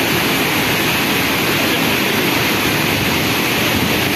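Hogenakkal Falls on the Kaveri River: white water cascading over rock ledges in a loud, steady rush.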